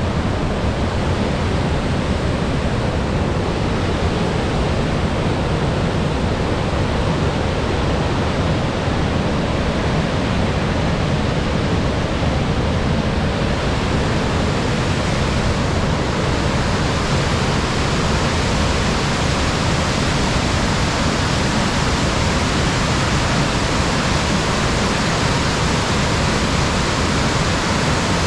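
Sugar River waterfall: a steady, loud rush of water pouring over the falls. About halfway through, the hiss grows brighter.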